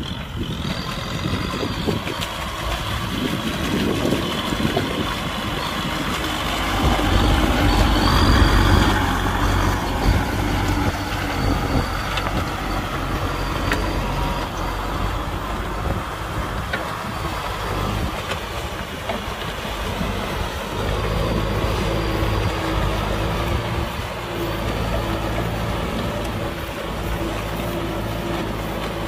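Kubota tractor's diesel engine running steadily under load while plowing a wet paddy field, with a louder swell about a quarter of the way in.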